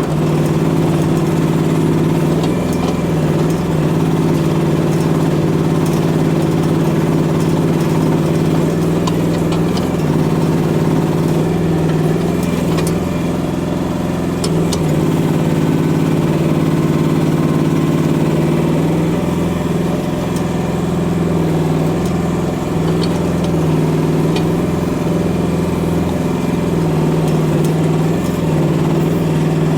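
Micro excavator's engine running steadily under working load while the machine digs out and pries a tree stump loose. A few sharp clicks and knocks are heard along the way.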